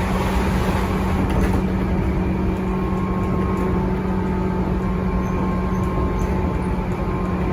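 Tobu 9000 series electric train car running, heard from inside: steady wheel-and-rail rumble with a steady hum from the armature chopper traction control. The chopper sounds normal, its earlier abnormal noise cured.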